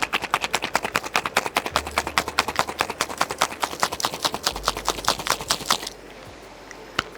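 Ice rattling inside a cocktail shaker shaken vigorously, about seven knocks a second, stopping about six seconds in. One more knock near the end.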